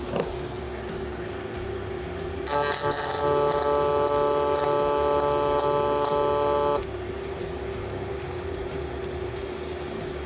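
MIG welding arc on steel: one weld bead with a steady buzzing hiss, starting about two and a half seconds in and stopping after about four seconds. A steady hum sounds under it and continues after the arc stops.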